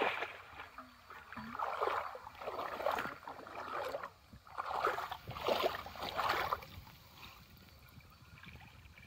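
Shallow muddy water splashing and sloshing as bamboo polo fish traps are plunged down into it and men wade through it, in several bursts that die down near the end.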